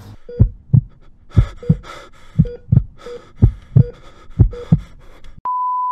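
Heart-monitor sound effect: five double heartbeat thumps about a second apart, each with a short electronic monitor beep. Near the end it breaks into a steady single flatline tone.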